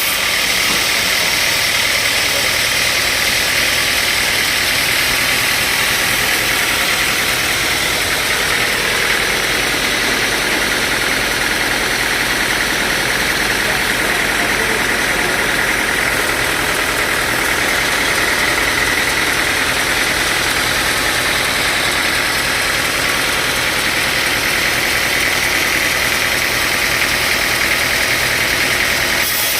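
Sawmill machinery, a log saw and its motor, running steadily with a continuous high hiss over a low hum.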